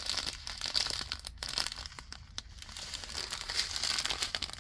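Small plastic packets of acrylic diamond-painting drills crinkling as they are handled and sorted, with a dense run of fine crackles.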